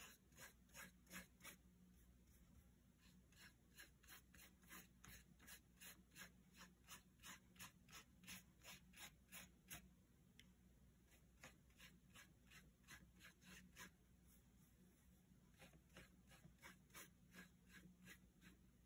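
Faint, quick strokes of a wet paintbrush on paper, about three a second, pausing briefly about halfway through.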